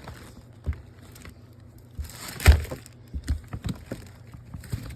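Rummaging through a storage bin: scattered knocks and thumps of items being moved about, with a rustle and the loudest thump about two and a half seconds in, then a run of smaller knocks.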